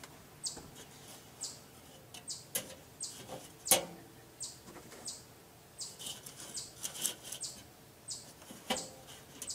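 Small birds chirping in short repeated calls, with a few sharp metal clinks and knocks as a gloved hand works the hinged cooking grate of a charcoal kettle grill, the loudest a little under four seconds in.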